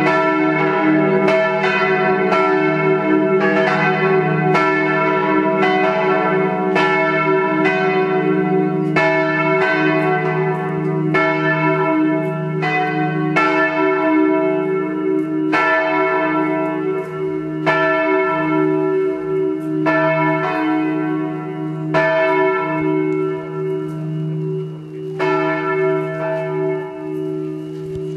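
Four swinging church bells ringing together as a partial peal, tuned e', f-sharp', g-sharp' and b' (three cast by Czudnochowsky in 1950, one by Kortler in 1907), in a dense overlapping clang with a long hum beneath. In the last third the strokes come further apart and the ringing gets quieter.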